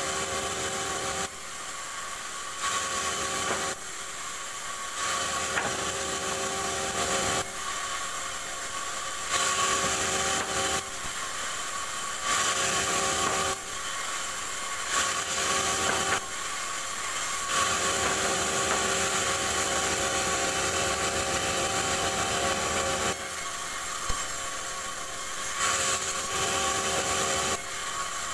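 Band saw mill running and ripping rubberwood planks: a steady hum with a sawing hiss. It swells and drops back every few seconds as each board is pushed through the blade.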